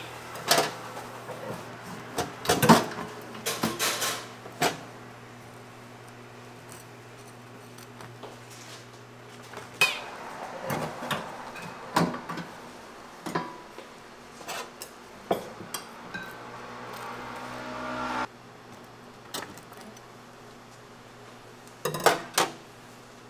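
Kitchen clatter: scattered clinks and knocks of utensils and dishes over a low steady hum. Near the end a hiss swells for a couple of seconds, then cuts off suddenly.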